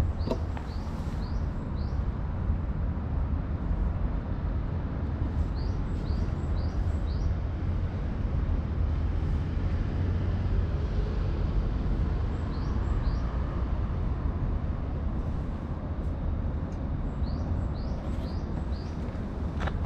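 Outdoor park ambience: a steady low rumble with short high bird chirps in small runs of three or four, several times.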